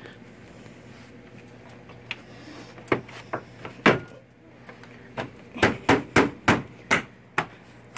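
Plastic front bumper cover of a 2012 Chevy Malibu being pushed and knocked by hand back onto its mounting clips by the headlight, giving sharp knocks and clicks. A few come scattered, then a quicker run of about seven near the end as the cover seats.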